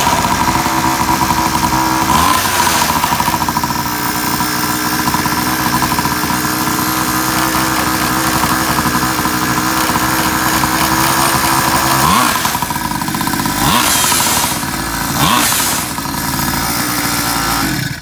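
Small two-stroke pocket bike engine running with a freshly cleaned carburetor. It is revved up briefly about four times and then cuts off suddenly at the very end.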